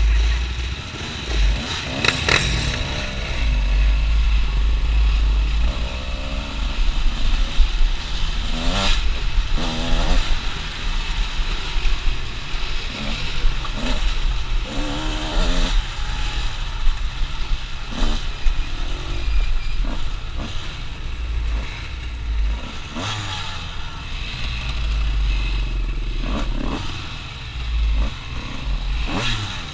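ATV engine running while being ridden over a rough trail, its revs rising and falling repeatedly, with rattling over rocks and heavy wind rumble on the helmet-mounted microphone.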